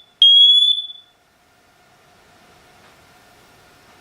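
SITERWELL hardwired smoke and carbon monoxide detector in test mode, sounding the last of three loud, high-pitched beeps in its fire alarm pattern. The beep lasts about a second and rises slightly in pitch, then comes a pause of about three seconds with only a faint steady hum.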